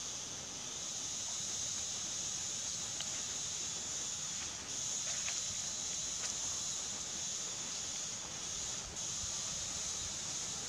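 Steady high-pitched drone of insects in dry forest, dipping briefly about halfway through and again near the end.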